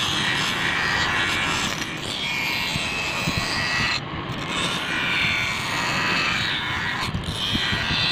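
Bench grinder running with a steel knife blade held against its spinning abrasive wheel: a continuous grinding hiss that swells and eases as the blade is pressed and moved across the wheel.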